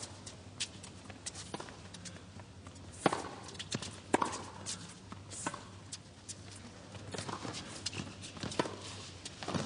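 Tennis rally: sharp pops of racket strings striking the ball and the ball bouncing on the court, with fainter ticks in between. The two loudest hits come about three and four seconds in, a little over a second apart.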